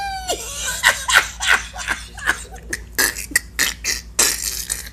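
A woman laughing hard: a drawn-out voiced note at the start, then rapid short breathy gasps, about three or four a second. She is laughing so hard she can barely breathe.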